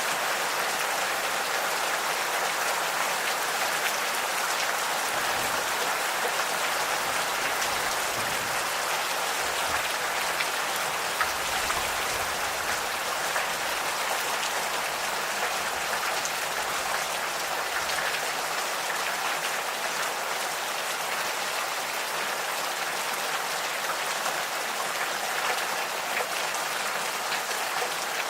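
Steady gentle rain falling, a constant hiss with many fine drop ticks.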